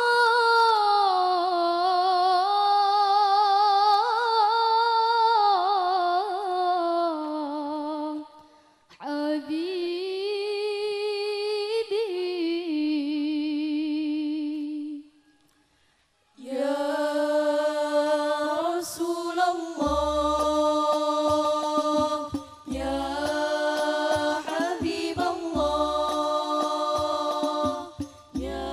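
Female voices singing an Islamic sholawat melody together through a PA, unaccompanied, with two short breaks. About twenty seconds in, deep drum notes come in beneath the singing, about one every three seconds.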